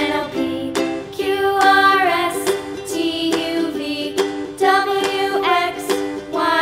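Background music: a children's rhyme sung over a light instrumental accompaniment.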